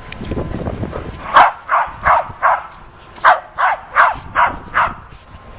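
A dog barking, about nine short, sharp barks in two quick runs, roughly three a second, starting a little over a second in.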